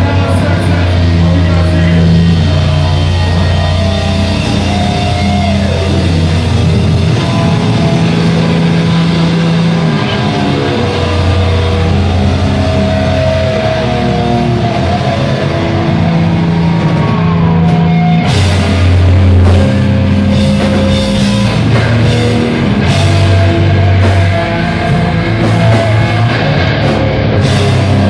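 Live hardcore metal band playing loud and heavy: distorted electric guitars and bass holding long low riffs over a drum kit, with cymbal hits thickening after about eighteen seconds.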